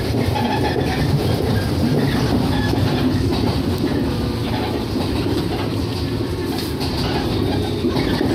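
Shinano Railway 115 series electric multiple unit running between stations, heard from aboard the car: a steady rumble of wheels on rail and the train's running gear and motors.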